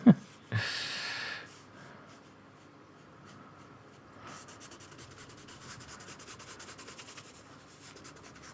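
Paintbrush working on paper: a brief swish about a second in, then a quick run of short scratchy strokes from about four seconds in.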